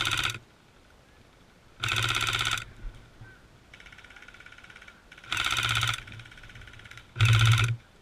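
Airsoft gun firing four short full-auto bursts of rapid shots, each under a second long, with a fainter burst of fire from another gun in between.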